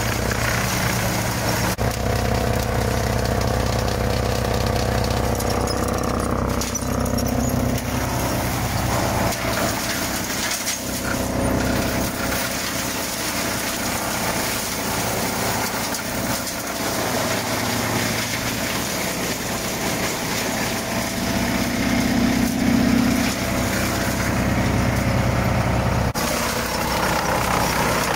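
Farmi Profi CH27 wood chipper, driven off the PTO of a FiatAgri 115-90 diesel tractor, running steadily while it chips a load of branches, with the engine hum under the noise of wood being shredded and chips blown out.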